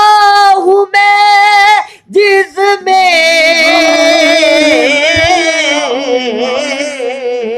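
Unaccompanied male singing of an Urdu naat: high held notes broken by short pauses, then from about three seconds in one long drawn-out phrase with wavering ornaments that slowly fades.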